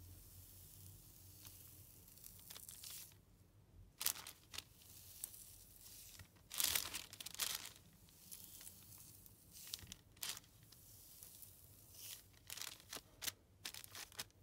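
Light, airy white foam-like filling from a steak squishy being squeezed and pulled apart by hand, giving soft, irregular crackly tearing sounds, loudest a little past the middle.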